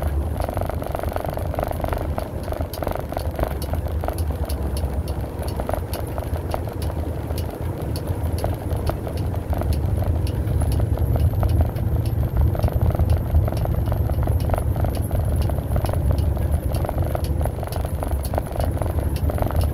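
Cab noise of a vehicle driving at highway speed: a steady low rumble of engine and tyres on the road, growing a little louder about halfway through, with frequent small rattles from inside the cab.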